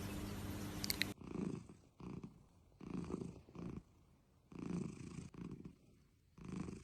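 A cat purring: a low rasping rumble that comes in pairs, a longer phase then a shorter one, repeating about every second and a half. Before it, about a second of steady hiss and hum cuts off suddenly.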